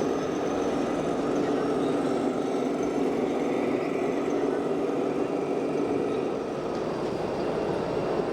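A steady, unbroken mechanical drone, like engine noise, with no distinct knocks or clicks.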